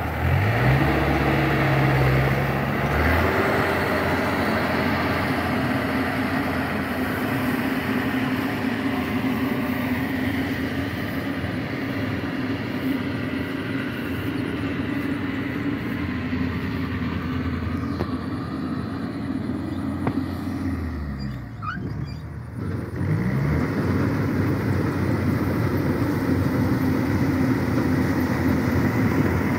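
Yanmar rice combine harvester's diesel engine running steadily. The engine note climbs as it revs up in the first second, and about three-quarters of the way through it sags and then climbs back.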